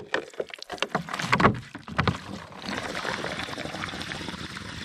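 Crackles and knocks of a plastic one-gallon water jug being handled, then water pouring out of the tipped jug and splashing onto wet ground, starting about halfway in.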